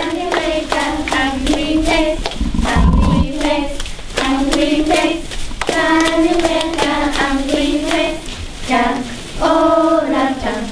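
A group of children singing a song together in held notes, clapping their hands in a steady beat about two to three times a second.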